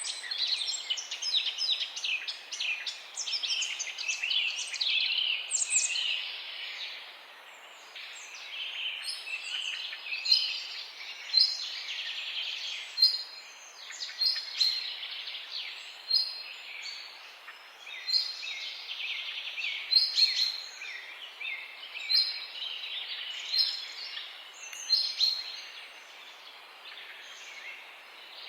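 Several songbirds chirping and trilling in a morning chorus over a steady background hiss. The calls crowd together in the first few seconds, then come sparser, with a few louder chirps.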